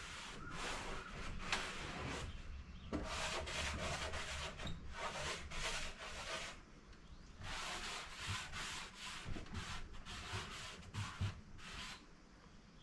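Wooden furniture surface being wiped by hand in quick back-and-forth rubbing strokes, cleaning off dirt, with a couple of short pauses.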